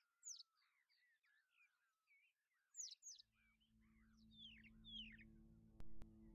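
Faint chorus of small birds chirping and twittering, many quick downward-sliding calls. About halfway through, low steady background music fades in under them, and two sharp clicks come near the end.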